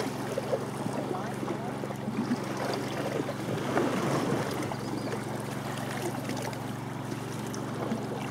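Motorboat engine running steadily, a low hum, with water and faint background voices.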